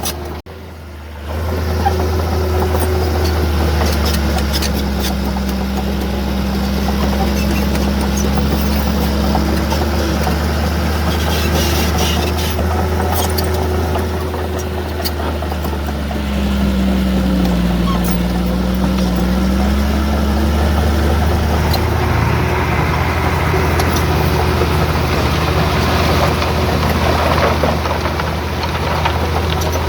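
Heavy diesel engine of earthmoving machinery running steadily, its pitch dipping and rising again about two-thirds of the way through, with occasional clanks.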